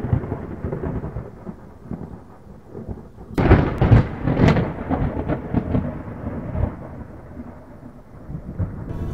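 Low rumbling and crackling like thunder, swelling loudest about three and a half seconds in and then dying away.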